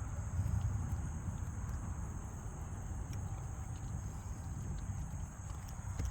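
A steady, high-pitched chirring of insects, such as crickets, over a continuous low rumble.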